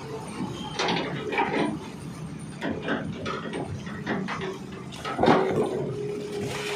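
Earth-moving machine digging at an excavation: irregular scraping and clattering of soil and stones, with a steady hum setting in about five seconds in.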